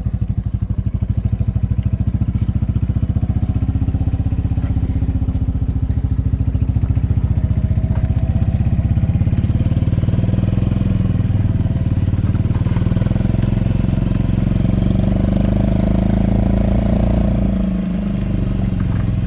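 Golf cart engine running steadily with a rapid putter as the cart drives, its pitch rising somewhat partway through and dipping briefly near the end.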